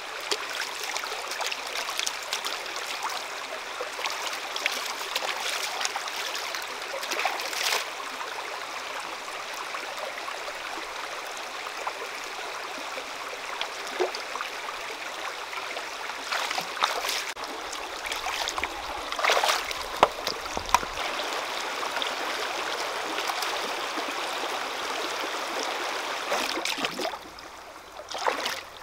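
Shallow rocky stream running and trickling over stones, with a few short sharp splashes. The sound is quieter near the end.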